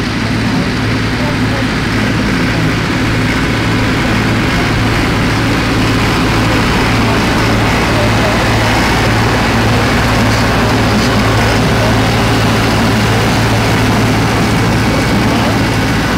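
Tractor engines running at a steady working speed, a constant low drone with no revving or pauses.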